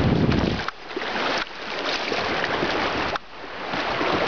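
Rushing whitewater river water heard from a canoe, a steady noisy rush. Wind buffets the microphone at first and cuts off suddenly under a second in.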